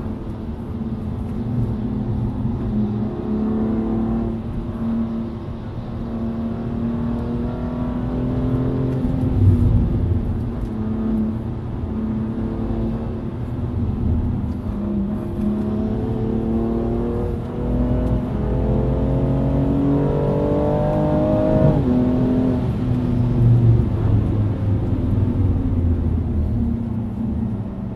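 Car engine heard from inside the cabin under hard driving, its note climbing as it pulls through a gear and then dropping sharply at an upshift about three-quarters of the way in, with tyre and road rumble underneath.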